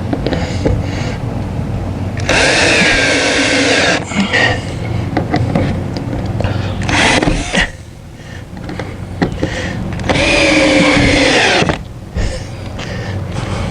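Power drill running in two bursts of about two seconds each, its pitch sliding as it loads up, with a few knocks and clicks in between.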